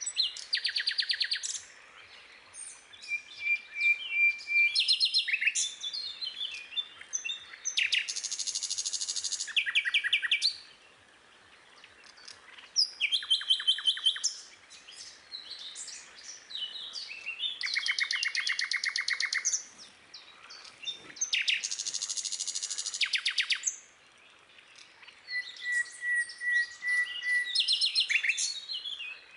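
Birdsong: a run of rapid, high trills and chirps, each lasting a second or two, separated by short pauses.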